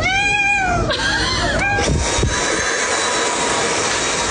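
A cat meowing twice in the first two seconds: one long meow that rises and falls in pitch, then a shorter one, over a steady loud rushing noise.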